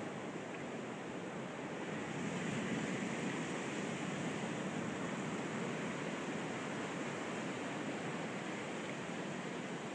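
Ocean surf washing steadily, swelling a little about two seconds in.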